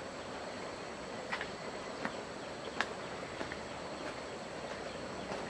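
Outdoor background noise with a faint, steady high insect drone, broken by a few sharp clicks or taps, the loudest a little past the middle.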